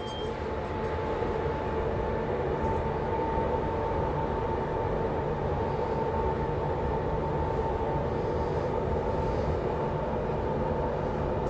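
Passenger lift car travelling down between floors: a steady running rumble and hum, with a steady whine that comes in about two seconds in.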